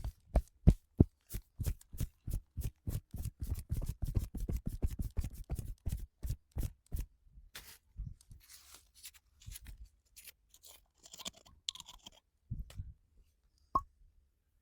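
Rapid, rhythmic percussive massage: the therapist's hands strike the body several times a second for about seven seconds. Softer scattered rubbing and patting follow, and there is a single sharp click near the end.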